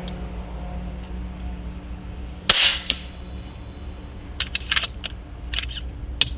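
A single shot from an FX Airguns Panthera 700 .22 PCP air rifle: one sharp crack about two and a half seconds in, with a short snap just after. A quick series of metallic clicks follows as the rifle's action is worked, over a steady low hum.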